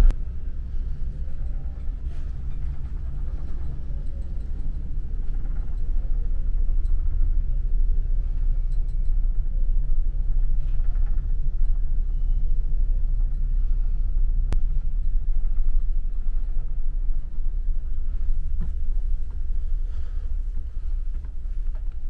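Steady low rumble of a large car ferry's engines and hull, heard from inside the ship, with one faint click about two-thirds of the way in.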